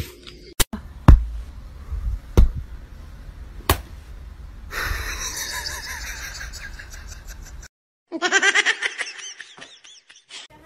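Several dull thumps, then a person laughing, with a quick run of laughs near the end.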